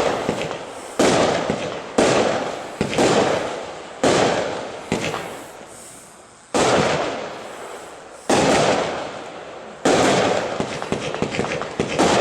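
A 25 mm compound firework cake (Yakuza Lesli 3D Pyro, 72 shots) firing: sharp bangs, each trailing off in a fading crackle. They come about once a second, spread out to every second and a half or so in the middle, then crowd close together near the end.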